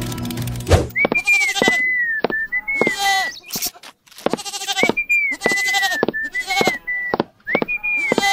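A bleating call made of pitched, wavering cries broken by sharp clicks, heard three times in the same pattern with short silent gaps between.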